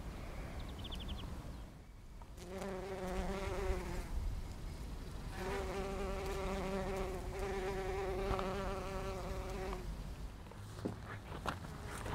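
Bumblebee buzzing in flight close by: a low, droning hum with a slight waver in pitch, heard twice, briefly about two and a half seconds in, then for about four seconds through the middle. Near the end come a few short clicks.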